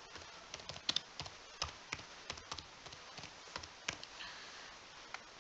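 Computer keyboard typing: a run of faint, irregular key clicks, about three or four a second, that stops about four seconds in.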